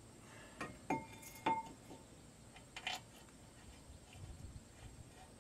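A few light metallic clinks, two of them with a brief ring, as a brake caliper bracket is handled and set over the front rotor.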